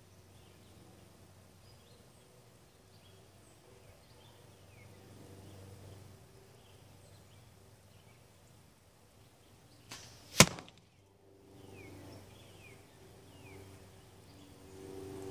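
A carbon arrow hits a tape-wrapped block target with a single sharp smack about ten seconds in, with a fainter sound a fraction of a second before it.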